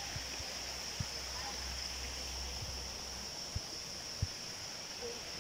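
Steady outdoor ambience, an even high hiss over a low rumble, with a few soft thumps of footsteps on a forest path.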